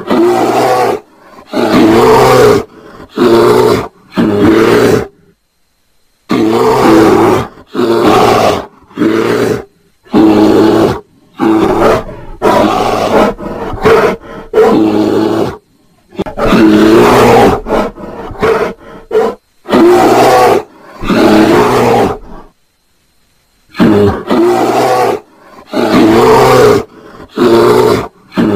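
Brown bears calling during mating: repeated loud growling roars, each under a second long, in runs of three to five with short silent gaps between the runs.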